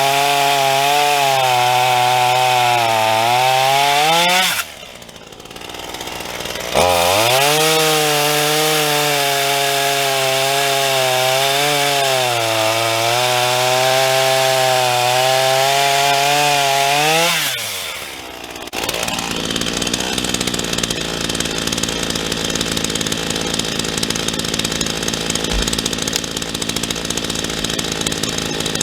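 Black Max 16-inch 38cc two-stroke chainsaw running at full throttle through wood, its pitch sagging and recovering as the chain bogs in the cut. It drops off about four seconds in and again around seventeen seconds in. After that a steadier, lower engine idles to the end.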